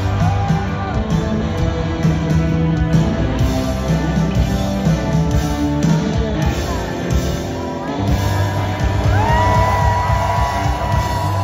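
Live rock band playing: electric guitars over bass and drums, with a high note held for about two seconds near the end.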